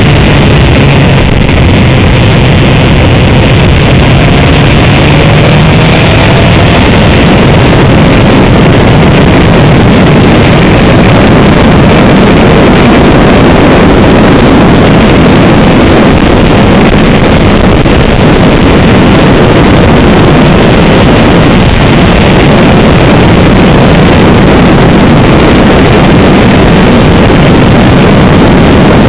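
Honda CBR 600 sport bike's inline-four engine running steadily at road speed, heard through an onboard camera with loud wind rush over the microphone.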